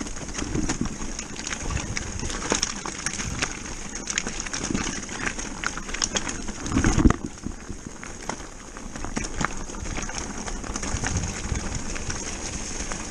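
Electric mountain bike descending a loose, rocky trail: tyres crunching over stones, with constant rattling and clatter from the bike and a heavier knock about seven seconds in.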